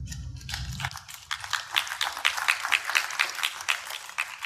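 Audience applauding: a dense run of distinct hand claps that begins just after the start and dies away near the end.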